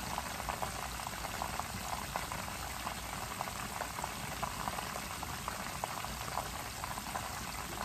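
Chicken pieces frying in hot vegetable shortening in an electric skillet: a steady sizzle with many small crackles and pops.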